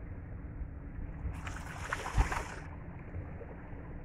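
Wind rumbling on the microphone over the sound of bay waves. Around the middle comes a brief louder rush with a single sharp thump.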